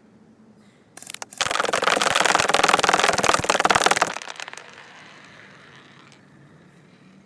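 Electric airsoft AK-47 rifle firing one sustained full-auto burst of about three seconds, a fast rattle of shots, with a few single clicks just before it starts.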